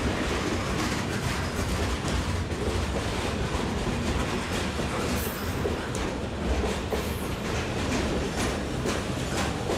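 Freight cars of a train rolling past, steel wheels clacking over rail joints with a steady rumble.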